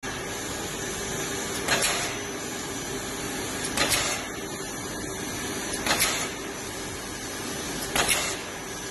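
Mamata pouch bag-making machine running with a steady mechanical noise, broken by a short, loud, noisy burst about every two seconds, four times, as the machine repeats its cycle.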